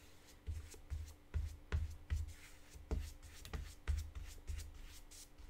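A flat brush stroked back and forth across damp watercolour paper, re-wetting a painted area, with soft bumps about two or three times a second as the strokes knock the board.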